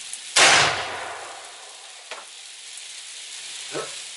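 A single shot from a Mossberg Patriot bolt-action rifle in .308 Winchester: a sudden loud report about half a second in that dies away over about a second, with a faint click later on. A steady hiss of freezing rain and wind runs underneath.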